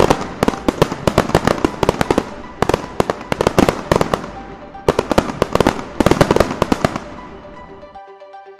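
Fireworks going off: a rapid run of bangs and crackling that tails off about seven seconds in. Near the end, background music with a simple repeating melody comes in.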